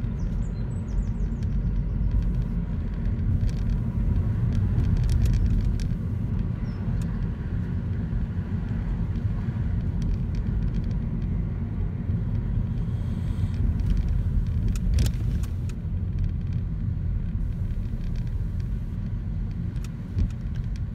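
Cabin noise of a moving car: a steady low rumble from the engine and the tyres on the road.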